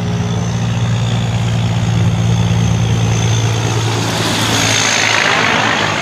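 Heavy semi-truck engine running with a steady low drone, mixed with road and tyre noise that swells about four to five seconds in as the truck and its trailer pass close by.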